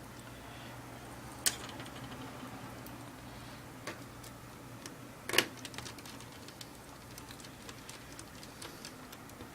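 Laptop plastic case parts being handled and fitted together: two sharp clicks, about a second and a half in and louder about five seconds in, with a scatter of lighter ticks and taps between them, over a low steady hum.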